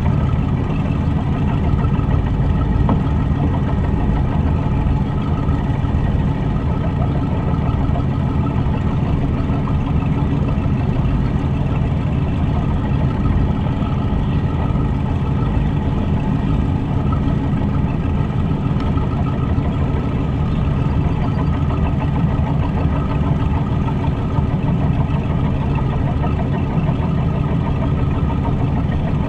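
Silverton motor yacht's engine running steadily at low speed, heard through the hull, with water washing along the side of the boat.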